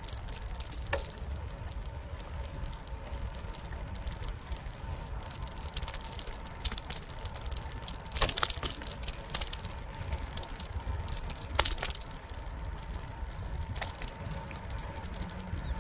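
Bicycle riding on a paved path: a steady low rumble of tyres and wind, broken by sharp rattling clatters as the bike goes over bumps. The clatters are loudest about eight seconds in and again a little after eleven seconds.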